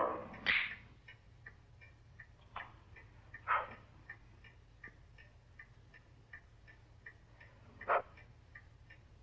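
Steady light ticking, about three ticks a second, broken by four short, louder noises.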